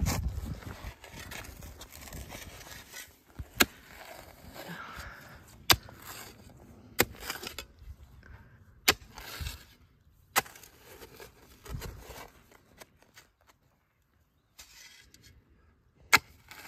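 Steel spade digging into grassy soil: the blade scrapes and cuts into the earth, with about half a dozen sharp clinks a second or two apart where it strikes stones in the hole.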